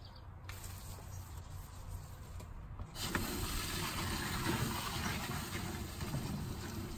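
About three seconds in, water suddenly rushes through a freshly rebuilt Suncast Aquawinder's water-driven hydraulic motor with a steady hiss as the automatic hose reel starts winding in the hose.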